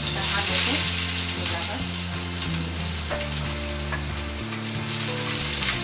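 Crushed garlic dropped into hot oil on an iron tava, starting to sizzle at once and sizzling steadily: the oil is hot enough for a garlic tempering.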